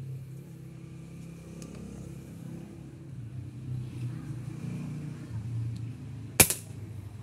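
A single airgun shot fired through a chronograph: one sharp, loud crack about six seconds in, over a steady low hum.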